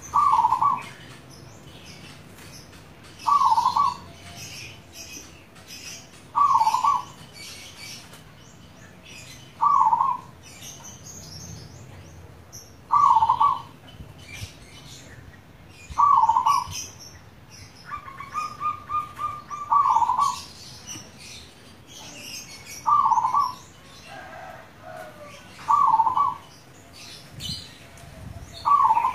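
Zebra dove (perkutut) cooing its song, one short phrase about every three seconds. A quick run of rapid notes leads into one phrase near the middle. Small birds chirp faintly in the background.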